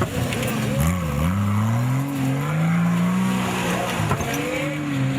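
Off-road 4x4 engine revving under changing throttle, its pitch climbing over about two seconds and then dropping back.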